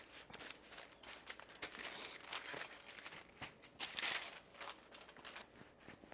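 Parchment paper crinkling and rustling as it is handled, among soft rubbing of hands and dough on a pastry mat; the loudest crinkle comes about four seconds in.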